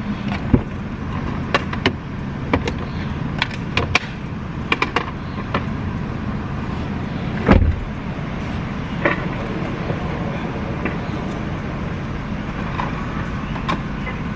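Car engine idling, heard inside the cabin, with scattered small clicks and knocks and one louder thump about seven and a half seconds in.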